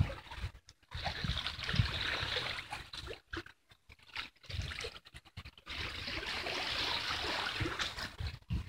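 Seawater lapping and trickling against the shore rocks, a steady wash broken by several brief silent gaps.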